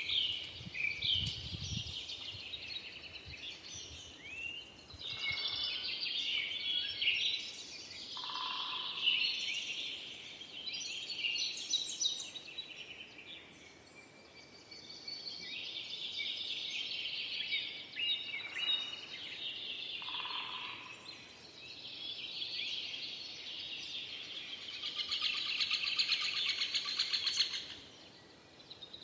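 Several forest songbirds singing together, with overlapping high chirps, whistles and trills and a few lower whistled notes. A dense, rapid trill stands out for a few seconds near the end.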